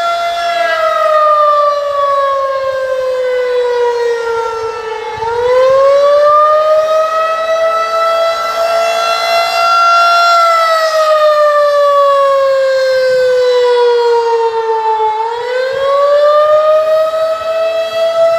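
Federal Signal 2001-SRN/DC outdoor warning siren sounding the Attack signal, a loud wail whose pitch slides slowly down over about four seconds, climbs back and holds, then slides down again and starts rising near the end.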